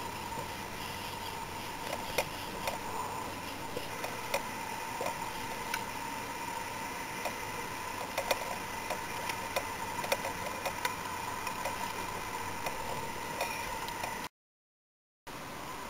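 Scattered light clicks and taps from fishing tackle being handled in a kayak as a fish is brought alongside, over a steady hiss with a faint steady tone. The sound cuts off suddenly near the end, then returns briefly.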